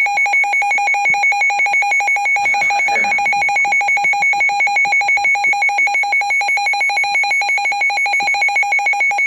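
Emergency Alert System attention signal broadcast over the radio: a loud, steady two-tone alarm with a fast pulsing flutter, marking a flash flood warning alert.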